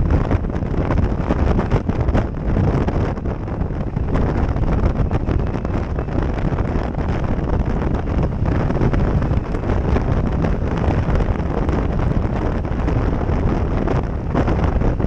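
Loud wind noise buffeting a GoPro Session action camera's microphone on a moving motorcycle, a continuous low rumbling rush that mostly buries the engine.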